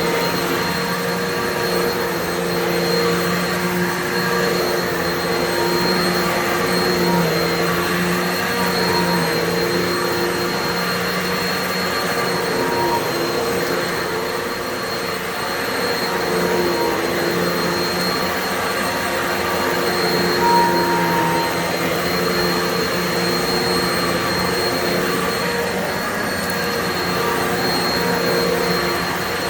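Upright vacuum cleaner running steadily, with a thin high whine over its motor hum. The motor's pitch wavers slightly now and then.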